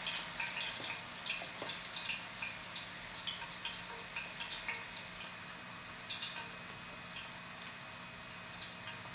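Onion rings frying in hot cooking oil in a cast iron pot: a steady sizzle with many small, irregular crackles and pops, over a faint steady low hum.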